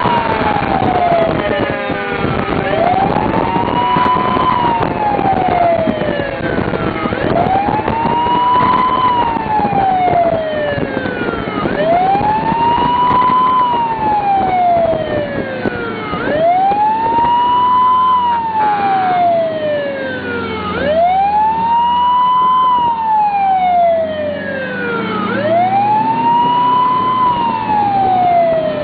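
Emergency vehicle siren sounding a repeating wail: each cycle rises quickly to its peak, then falls more slowly, about every four and a half seconds, over a low rumble.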